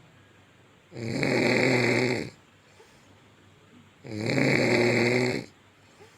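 A sleeping woman snoring very loudly: two long snores, each well over a second, about three seconds apart.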